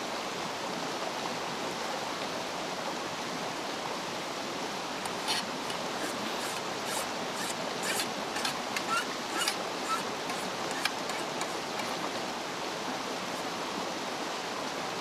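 Steady rushing background noise, dotted through the middle stretch with a scatter of sharp crackles and pops from a wood campfire.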